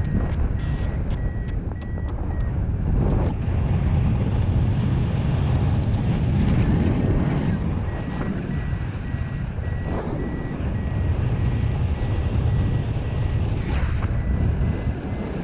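Wind rushing over the microphone of a paraglider in flight. Over it, a paragliding variometer beeps in a quick, high, even series, stopping about two and a half seconds in and starting again about eight seconds in: the climb tone that signals the glider is in rising air.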